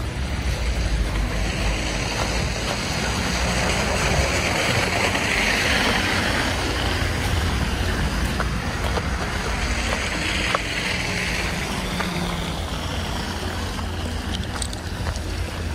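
Street traffic: cars driving past on a wet, slushy road, their tyre hiss swelling twice as vehicles go by, over a steady low rumble.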